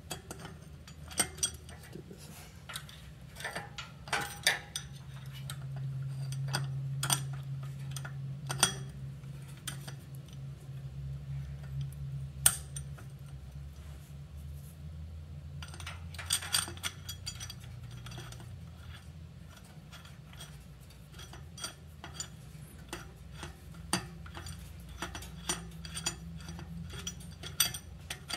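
Small metal nuts and bolts clicking and clinking as they are handled and fitted to a motorized bicycle's rear sprocket and hub mount, with irregular sharp ticks, some in quick clusters, over a low steady hum.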